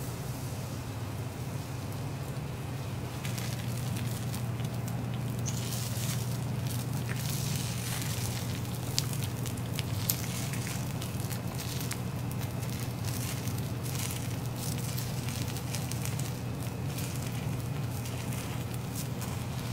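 Beaten egg squeezed in thin lines onto a hot teppanyaki griddle, sizzling with fine crackles and a couple of sharper pops about nine and ten seconds in, over a steady low hum.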